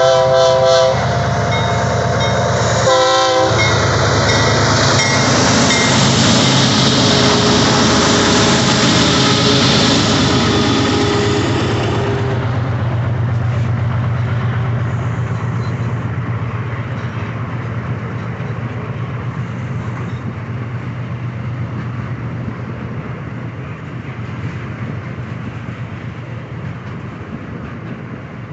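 Two GE ES44 diesel-electric locomotives climbing a grade under load with a tank train: the horn ends just under a second in and sounds again briefly about three seconds in, then the engines run loud and hard. After about twelve seconds the sound turns to a lower, steady drone that slowly fades.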